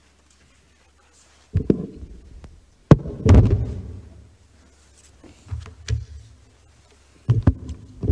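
Handling noise on a desk microphone: a string of knocks and thumps, the loudest a sharp click about three seconds in, as the microphone is switched on and adjusted before speaking.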